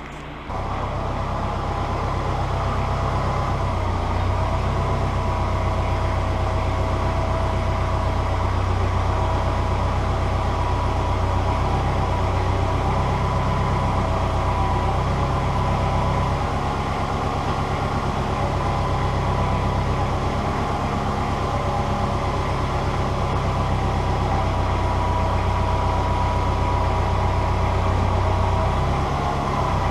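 Tractor engine running steadily under load, starting about half a second in, with a thin whine above it that fades and returns.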